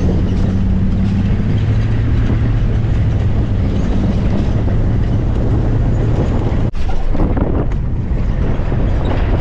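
Pickup truck driving: steady road and engine noise with wind rushing past, and a low hum through the first two-thirds.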